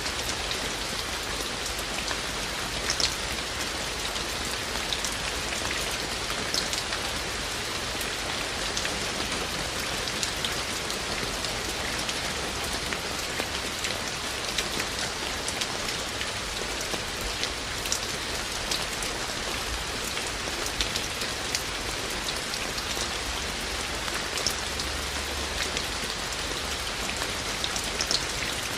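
Steady rain, with scattered louder drops hitting close by.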